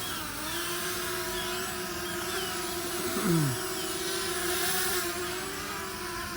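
Quadcopter drone's propellers humming steadily in flight. A brief falling tone cuts through about three seconds in.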